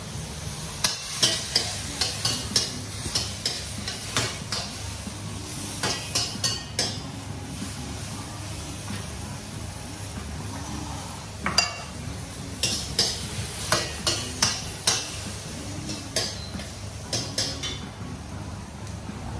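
Metal ladle scraping and clanking against a steel wok as vegetables are stir-fried, in irregular clusters of strikes, over a steady sizzle from the pan.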